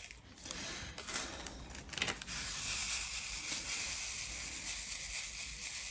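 Square crystal diamond-painting drills poured from a small plastic zip bag into a plastic drill tray: a few light clicks, then a soft, steady hissing rattle of many small drills from about two seconds in.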